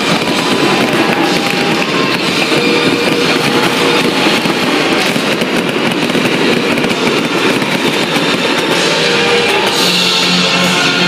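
Fireworks going off in a dense run of crackles and bangs, with music playing loudly at the same time.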